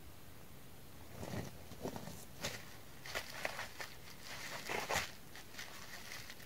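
Faint footsteps over logs and brush: scattered soft crackles and knocks.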